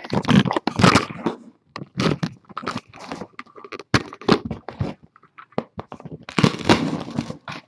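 Handling noise on the camera's microphone: a run of irregular rubs and knocks as the camera is gripped and moved, dying away near the end.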